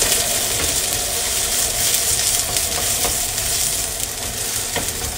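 Spiced lentil patty (Newari bara) sizzling steadily as it fries in oil in a nonstick frying pan.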